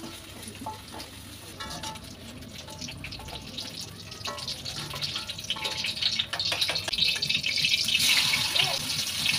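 Metal utensils clinking against a wok and bowl, then hot cooking oil sizzling louder and louder near the end as red chili paste is tipped into the wok.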